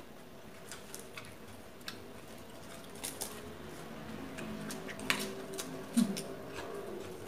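Scattered sharp clicks and crunches of eating at a table: fingers and utensils on plates and chewing, the loudest about five and six seconds in.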